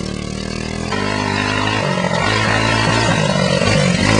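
Souped-up racing lawnmower engines running at speed, getting louder about a second in.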